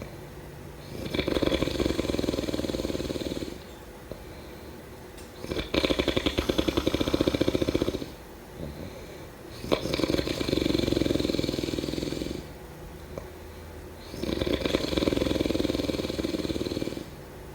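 A person snoring in sleep: four loud snores roughly every four to five seconds, each lasting a couple of seconds, with quieter gaps between. The snore about six seconds in is a rattling one.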